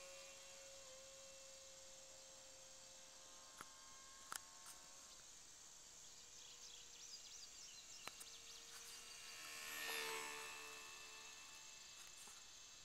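Faint whine of an E-flite Curtiss N9 electric RC biplane's motor and propeller in flight: a steady tone that shifts pitch a few times with the throttle and swells about ten seconds in. A few sharp clicks and faint high chirps come through as well.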